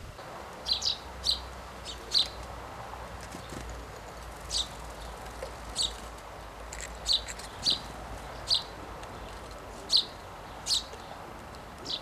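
Small garden songbirds calling: about a dozen short, sharp chirps, spaced irregularly, some in quick pairs.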